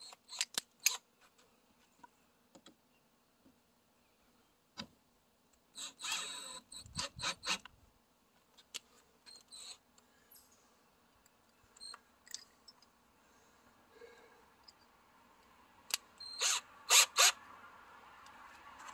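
Cordless drill and its chuck being handled and swapped by hand: scattered clicks and knocks, with two short clusters of louder clicking and clatter about six and sixteen seconds in.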